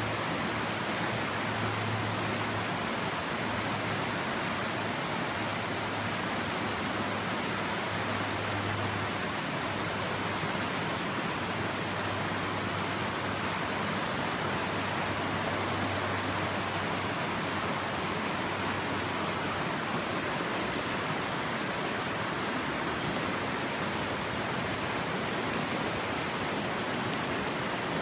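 Steady rush of a mountain trout stream's flowing water.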